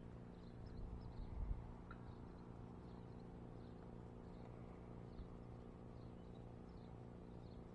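Quiet outdoor ambience: faint, scattered high chirps of distant birds over a steady low hum, with a brief low rumble about a second in.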